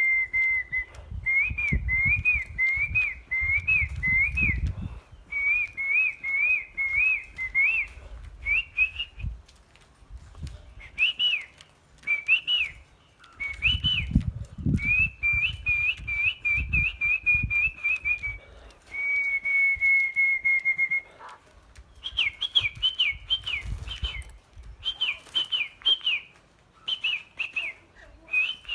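A songbird singing loud, clear whistled phrases: runs of short notes that rise and fall, a long held note near the start and another about 19 seconds in. Low rumbling thumps come under the song in two stretches.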